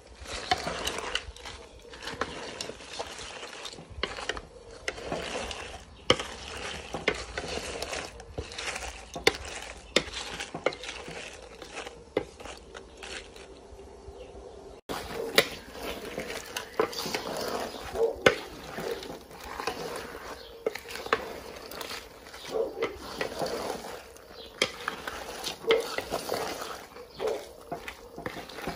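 Wooden spoon stirring a large metal pot of cooked crawfish and shrimp in sauce: the shells clatter and the spoon knocks against the pot in irregular strokes.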